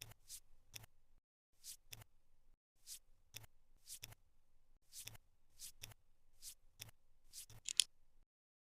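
Jigsaw puzzle pieces being handled and set into place: a quick swish followed by a sharp click, repeated about every half second, with a louder burst of clicks near the end.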